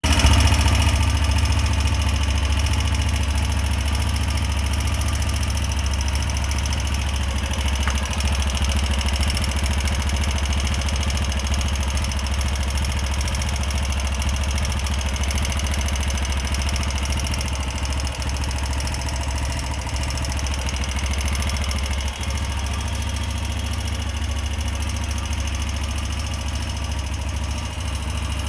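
TVS Apache RTR 160 4V's single-cylinder engine idling steadily, making a noise that the owner takes for an engine problem.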